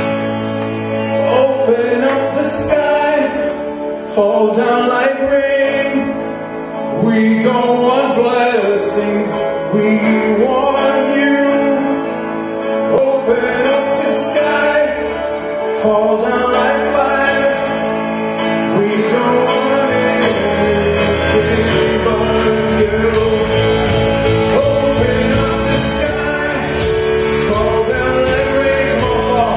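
Contemporary worship music: a full band playing, with a male voice singing without clear words over it. The low end grows fuller about two-thirds of the way through.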